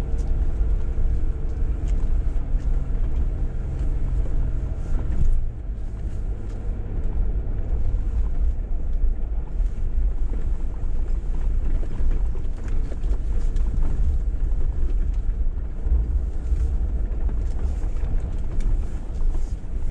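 Jeep Wrangler driving on an off-road trail: a steady engine note with low rumble, and the engine tone drops away about five seconds in, leaving a rougher rumble.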